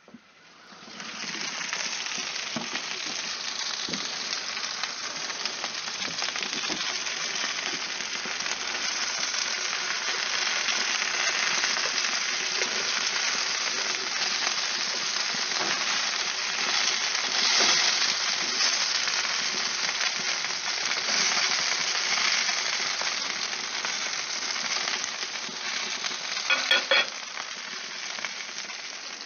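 Bacon-wrapped chicken sizzling and crackling steadily on a hot gas barbecue grill, the sizzle starting about a second in. A few sharp clicks come near the end.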